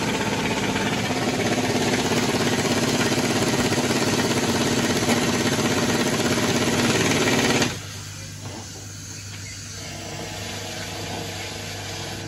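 Loud, rapid mechanical rattling from a workshop machine for about eight seconds. It cuts off suddenly, leaving a quieter steady hum.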